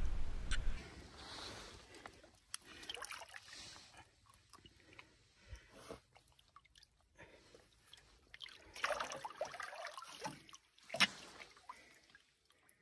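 River water sloshing and splashing in short, irregular bursts, with a louder stretch about nine seconds in and a sharp knock soon after.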